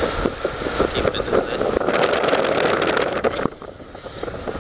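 A yakatabune cruise boat running under way, a steady rush of motor and water noise with wind buffeting and crackling on the microphone. The noise drops suddenly about three and a half seconds in.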